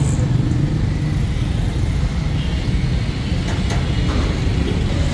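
Steady low rumble of street traffic, with a few faint clicks about three and a half seconds in.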